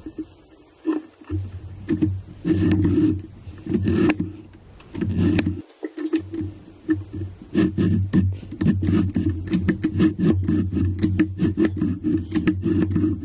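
A hand-ground single-point keyway cutter in a milling machine quill being pushed down and pulled back up through a steel bore, shaving metal to cut an internal keyway. It scrapes stroke after stroke over a low hum, with short pauses early on and about six seconds in, then quicker strokes toward the end.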